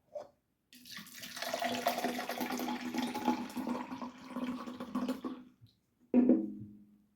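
Peach hard iced tea poured from its can into a cup: a steady splashing pour of about five seconds. Shortly after it stops comes a single knock with a short ring.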